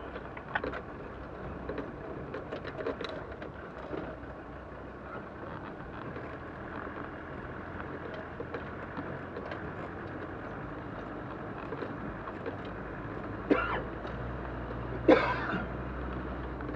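4x4 vehicle crawling over a rocky track, heard from inside the cab: steady engine and tyre noise with many small knocks and rattles. Near the end, two sharp bangs about a second and a half apart as the vehicle jolts over rocks.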